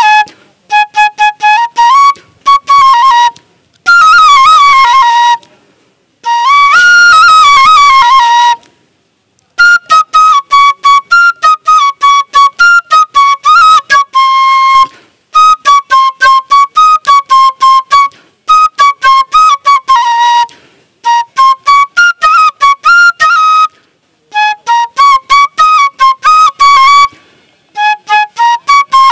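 Bansuri (bamboo transverse flute) blown by mouth, playing a folk tune in phrases of rapid, short tongued notes. A few longer held notes bend up and down in pitch, and there are brief pauses between phrases.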